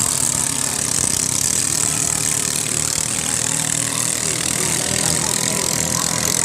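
Ketinting longtail boat engines running with a steady, even drone.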